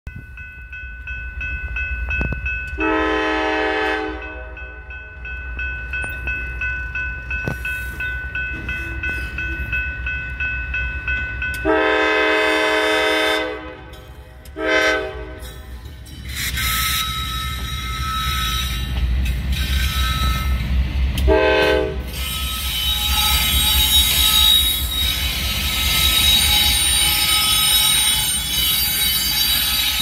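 Grade-crossing warning bell ringing steadily while an approaching Norfolk Southern diesel locomotive sounds its multi-chime air horn in four blasts: two long, one short, then a brief last one. The locomotive's engine rumble builds, and for the last third the loud rolling noise of the train passing over the crossing takes over.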